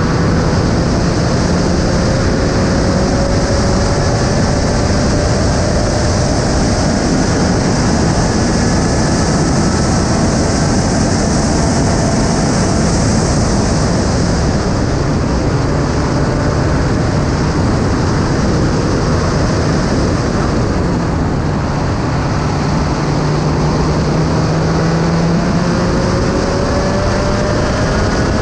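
Spec Racer Ford (SRF3) race car at speed, heard from an onboard camera: the engine running hard under load, buried in heavy wind rush. Its note climbs slowly as the car accelerates, most plainly near the start and again near the end.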